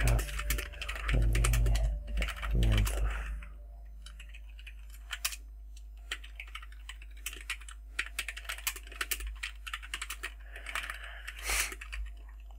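Computer keyboard typing: runs of quick key clicks with short pauses, over a steady low hum.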